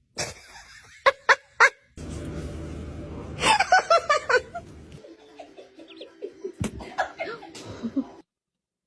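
People laughing in short, falling bursts, amid a string of abrupt changes in sound, with three sharp loud bursts about a second in.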